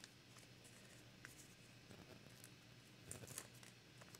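Faint paper handling: die-cut masking-paper leaves being picked up and placed on cardstock, with light rustles and small ticks that grow a little busier about three seconds in.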